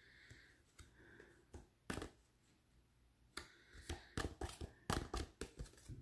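Thin, glossy tarot cards handled and flexed in the hands: a few isolated clicks, then from about halfway a quick run of sharp card clicks and snaps.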